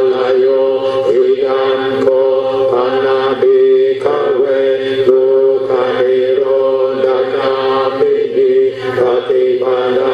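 Buddhist chanting: voices reciting on a near-monotone pitch, with short breaks between phrases.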